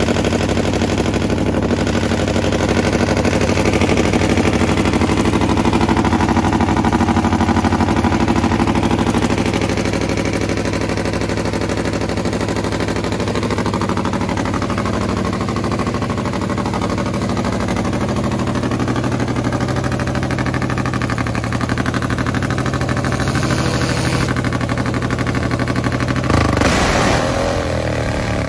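Nitro-burning Top Fuel drag motorcycle engine running loud and steady at the starting line. Near the end it suddenly revs up hard.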